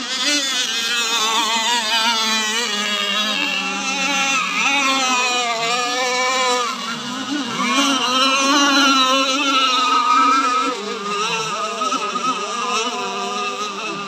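Several remote-control racing powerboats running flat out on the water, their high-revving motors whining and wavering up and down in pitch as they race and turn.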